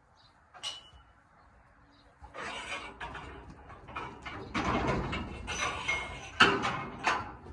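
Rustling and scraping with sharp clicks and a few metallic clinks, as a coiled lead rope is handled and hung on a post. The loudest clatter comes near the end.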